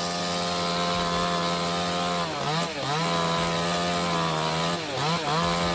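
Two-stroke chainsaw running at high revs, its pitch dropping and picking back up twice, about two and a half seconds in and again near the end.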